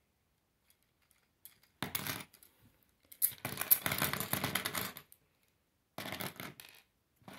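Black plastic K'nex wheels clacking and rattling against each other as they are slid along and off a plastic rod, in four bursts of clicking after a quiet start, the longest in the middle.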